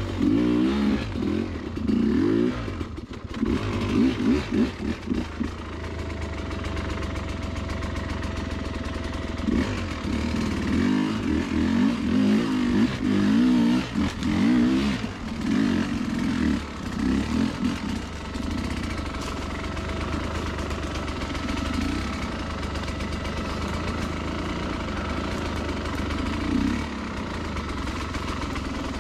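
Dirt bike engine running at low trail speed, the throttle opened and eased off in uneven surges. It settles into a steadier run in the later part.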